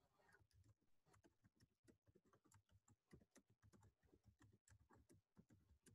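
Faint typing on a computer keyboard: a run of irregular keystroke clicks.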